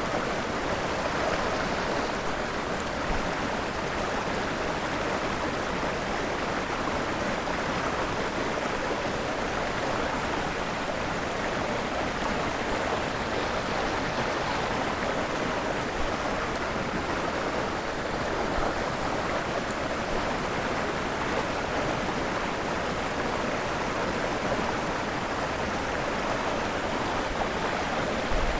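Fast-flowing stream water running steadily through rapids.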